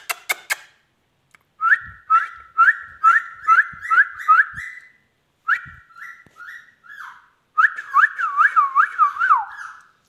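Indian ringneck parakeet whistling: a run of short, sharply rising whistled notes, about two a second, then after a brief pause a quicker run of rising-and-falling whistles that ends on a falling note. A few sharp clicks come right at the start.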